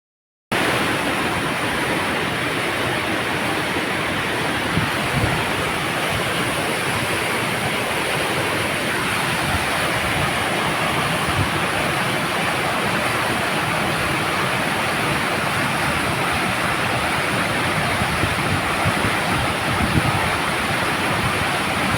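Steady rushing of flowing water, an even hiss that holds at one level throughout.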